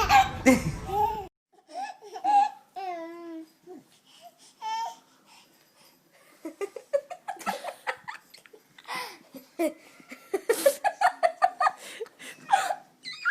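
A baby babbling with warbling squeals, then laughing in a run of short, quick bursts through the second half.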